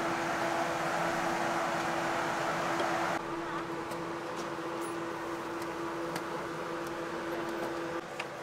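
A machine hums steadily at one constant pitch over a loud hiss. About three seconds in the sound drops suddenly, and afterwards light clicks and clinks come through the quieter hum.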